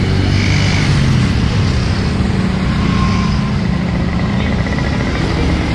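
Street traffic: motor vehicle engines running steadily on the road.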